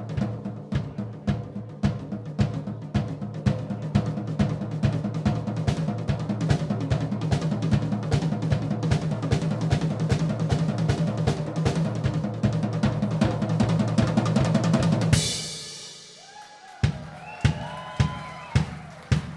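Acoustic drum kit played solo: fast, dense rolls and fills across the snare, toms and bass drum, ending about fifteen seconds in on a loud cymbal crash that rings out. After a brief lull, single heavy beats start at about two a second.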